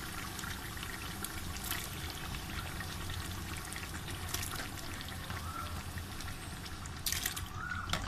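Grated tomato dropping into chicken gravy in a large aluminium pot, landing with wet plops about three times over a steady low hum.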